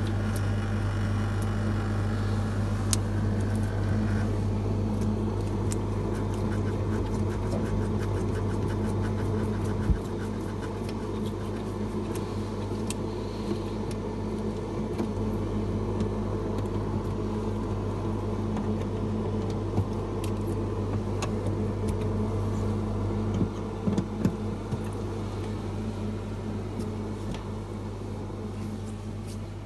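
General Electric refrigerator running with a steady low hum, back in operation after its defrost timer was replaced, with a few light clicks in the second half.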